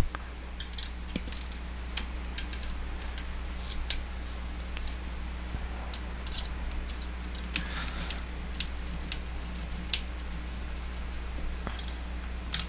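Small irregular clicks and scrapes of a screwdriver turning and seating screws that fasten the floppy disk drive into an MSX computer's chassis, over a steady low hum.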